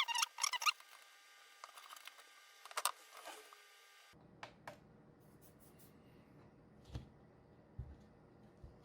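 Small clicks and taps of tools being handled on a repair bench, mixed with a few short electronic chirps in the first seconds. About four seconds in the background switches abruptly to a low hum with only a few faint knocks.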